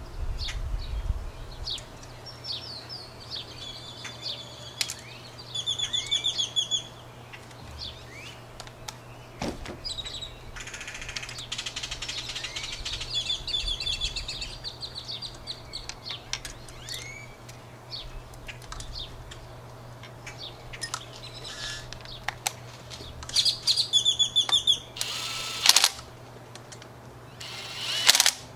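Small birds chirping and trilling again and again, with light clicks of metal parts being handled. Near the end, two short bursts of a cordless drill-driver spinning nuts down onto cylinder-head studs.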